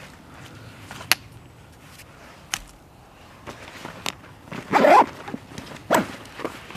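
Backpack gear being handled: a few sharp clicks of buckles and clips, and a louder rustle of pack fabric and dry leaves just before five seconds in.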